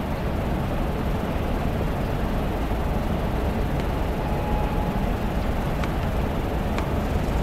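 Steady low rumbling background noise, with a couple of faint clicks near the end.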